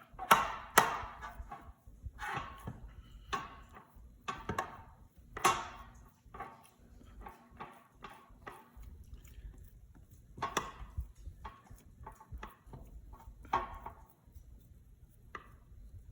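Overly wet whole-grain bread dough being slapped, pulled and stretched by hand on an oiled countertop: irregular sticky smacks and slaps, the loudest two in the first second.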